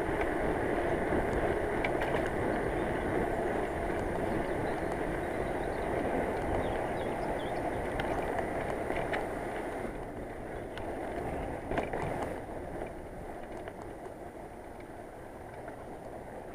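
Bicycle riding noise on the road: a steady rumble and hiss of tyres and moving air that eases off over the last few seconds, with a few faint clicks.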